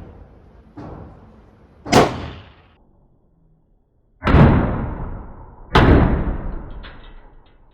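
Slow-fired pistol shots from a PSA Rock 5.7 in 5.7×28mm: a lighter crack about a second in, then three loud shots spaced a second and a half to two seconds apart, each ringing out in a long echo.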